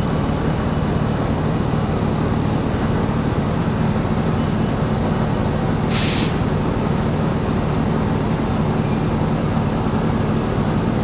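Interior of a New Flyer XD60 articulated bus on the move: steady low drive rumble and road noise, with a short burst of air hiss about six seconds in.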